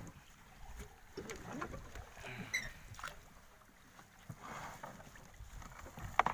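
A paddle working the water beside a small boat, with light splashing and scattered knocks; the sharpest knock comes near the end.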